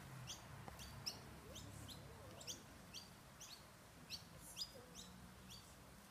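A small animal chirping: short, high, rising chirps repeated evenly, about two to three a second, over a faint low hum.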